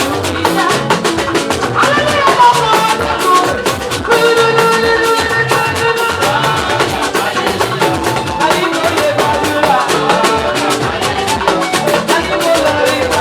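Praise band music: drums and percussion keep a fast, steady beat under held melodic notes.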